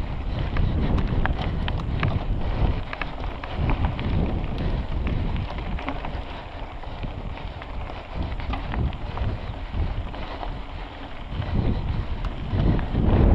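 Wind rushing over the microphone of a mountain bike moving along a dirt trail, with many sharp clicks and rattles from the bike jolting over rough ground, and a louder gust of wind near the end.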